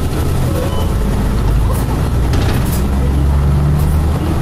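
Hakodate streetcar running along its track, heard from inside the car: a steady low hum of the motor and wheels on the rails, with a few sharp clicks and rattles about halfway through.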